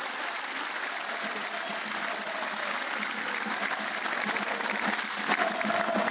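Stadium crowd applauding steadily in a dense, even patter, with a voice calling out near the end.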